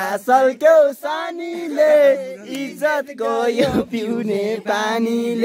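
A man's voice rapping in a half-sung chant, with long held notes and pitch sliding up and down. A brief low thump about three and a half seconds in.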